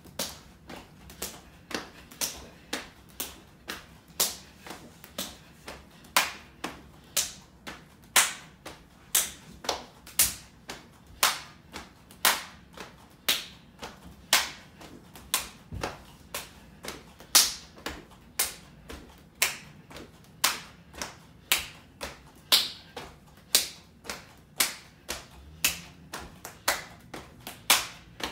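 A child doing jumping jacks barefoot: a steady rhythm of sharp claps and slaps, about two to three a second, alternately louder and softer, as the hands meet and the feet land on a hard wood-look floor.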